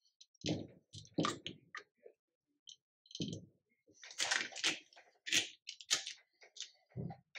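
Screwdriver prying and clicking against the plastic and metal parts on the back of a Bosch alternator, then a plastic part being worked loose and lifted off, giving irregular clicks and knocks. The clatter is busiest about four to six seconds in.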